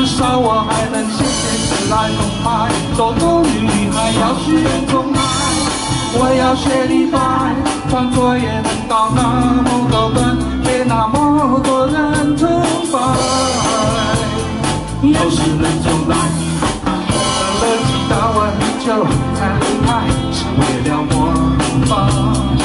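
A man singing into a microphone through PA loudspeakers, over music with a steady beat.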